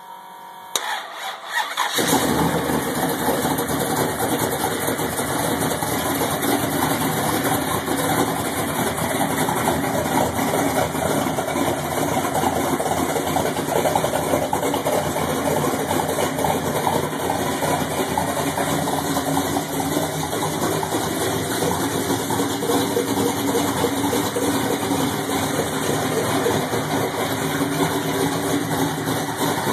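Ford 429 big-block V8 cranked by the starter and catching about two seconds in, then running at a steady idle through Flowmaster mufflers.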